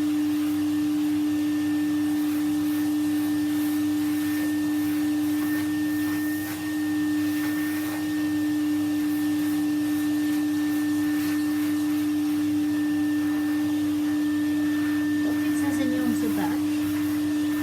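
Vacuum cleaner running steadily with a strong, even hum and a fainter high whine, its brush attachment being worked over the body to suck up sanding dust. The level dips briefly about six seconds in, and a short falling squeak comes near the end.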